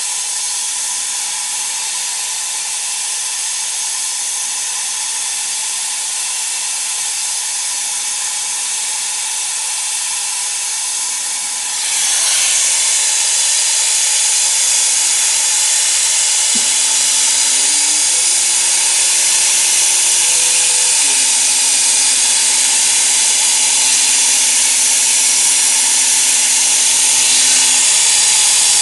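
Gas-dynamic cold-spray gun blasting compressed air and metal powder onto a steering rack: a loud, steady hiss that steps up in loudness about twelve seconds in. In the second half a lower whine joins for about ten seconds, shifting in pitch a few times.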